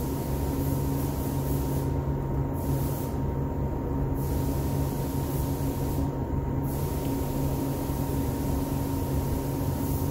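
Steady mechanical hum with a few constant low tones and a fainter higher tone over an even hiss.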